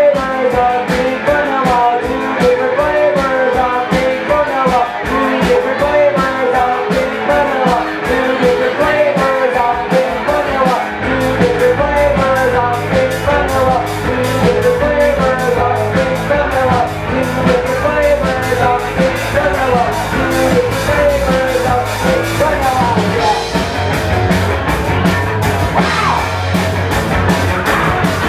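Live rock band playing: a wavering cello melody over fast, driving drums, with electric bass. The low end gets heavier about eleven seconds in.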